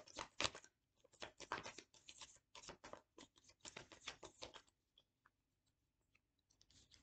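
A deck of oracle cards being shuffled by hand: quick soft crisp clicks and flutters of the cards, which stop about four and a half seconds in, with a few faint card ticks near the end.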